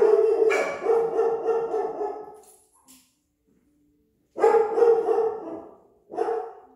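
A dog barking loudly in drawn-out bouts: a long one lasting about two seconds, then after a pause a shorter one and a brief last one near the end.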